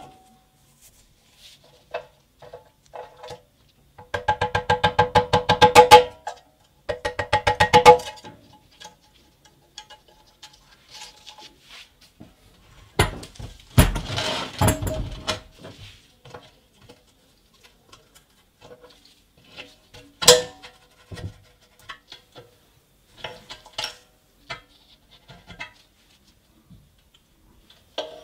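Metal workshop handling sounds. A wrench ratchets in two quick runs of evenly spaced, ringing clicks. Later the steel air tank of the old compressor rattles and knocks as it is turned over, followed by one sharp metal clank and scattered light taps and clicks of tools on metal.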